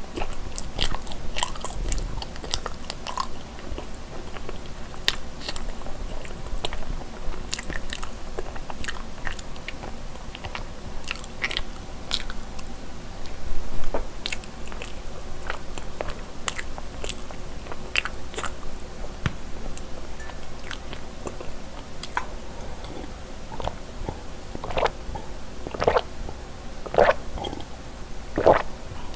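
Close-miked chewing of soft cream cheese mochi rice cake, with many short, wet mouth clicks. Near the end come several fuller gulps of milk.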